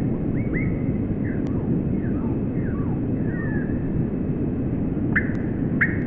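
Small birds chirping in a string of short, quick notes, with two sharper, louder chirps near the end, over a steady low rumble.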